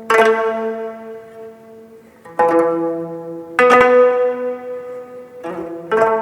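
Ensemble of jeongak gayageums, Korean twelve-string zithers, plucking slow, sparse notes in unison: four plucked strokes spaced a second or two apart, each note ringing on and fading before the next.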